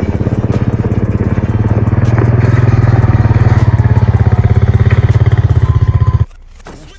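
A motor vehicle engine running with a fast, even pulse. It gets a little louder about two seconds in, then cuts off abruptly near the end.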